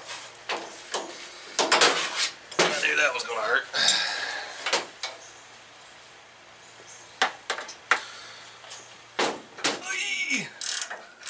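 Scattered metal clinks and knocks of hand wrenches working the nuts and bolts of a race car's front suspension and steering linkage, loosening them for removal.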